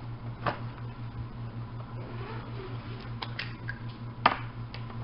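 A small plastic toy and its packaging handled by hand: a few sharp clicks and light rustling, the loudest click a little past four seconds in, over a steady low hum.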